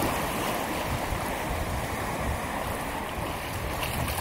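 Small waves washing up on a sandy shore, with water splashing around feet wading in the shallows.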